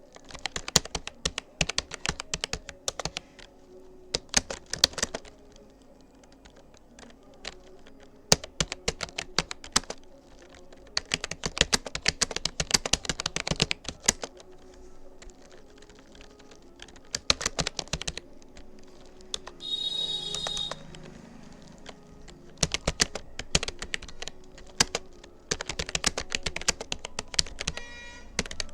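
Fast touch-typing on a Rapoo computer keyboard: rapid runs of key clicks in bursts of a few seconds, broken by short pauses. A brief high-pitched tone sounds about twenty seconds in and again near the end.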